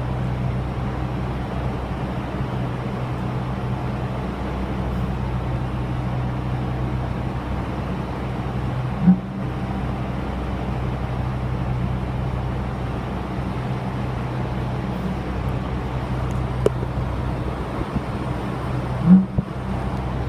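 Broken apartment air conditioner running with a steady low hum, with a loud bang about every ten seconds: once about nine seconds in and again near the end. A faint click comes between the two bangs.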